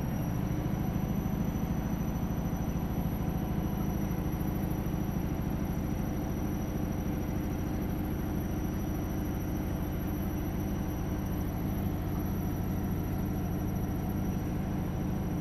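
Aquarium pump running with a steady low hum.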